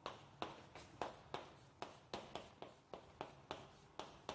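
Chalk writing on a blackboard: a faint, rapid run of short taps and scrapes, about three to four strokes a second.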